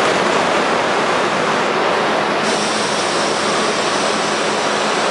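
R32 subway train pulling out of a station, a loud steady rushing noise of its motors and wheels on the rails.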